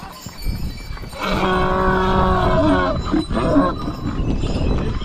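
A large animal's long, steady, low call, like a cow's moo, begins about a second in and lasts nearly two seconds. Shorter calls follow.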